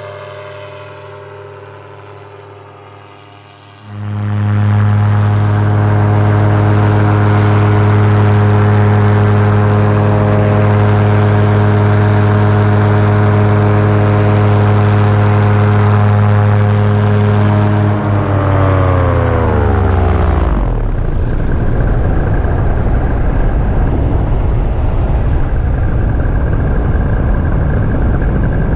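Paramotor engine and propeller fading as it flies away, then heard close up from the pilot's harness as a loud, steady drone. About two-thirds of the way through the engine is throttled back, its pitch falling until the drone is gone, leaving wind rushing over the microphone.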